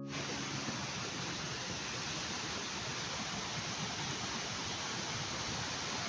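A fast mountain stream rushing, a steady even roar of water.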